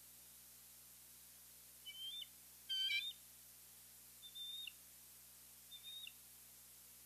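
Bald eagle calling: four short, high-pitched chirps, the second the loudest, each holding its pitch and then dropping at the end.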